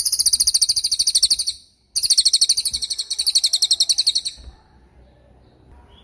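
Cililin bird singing two long, rapid, high-pitched trills of fast-repeated sharp notes, with a brief break between them; the second trill starts about two seconds in and stops a little after four seconds.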